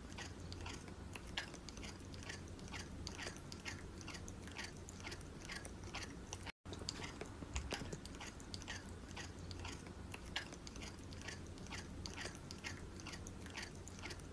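A silver tabby cat crunching dry kibble in its teeth, about three crunches a second, with a brief gap about halfway.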